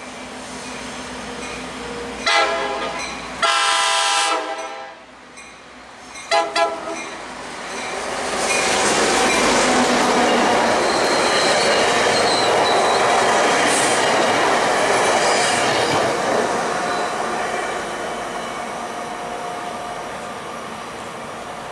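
Tri-Rail commuter train blowing its horn as it nears a grade crossing: a short blast, a longer one, then a brief double toot. It then passes close by with a loud, steady rush and clatter of wheels on rail that fades over the last few seconds.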